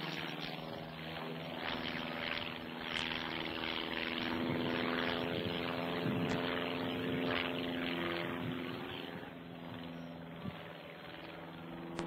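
Propeller plane's piston engine droning steadily in flight, growing slightly quieter about three-quarters of the way through.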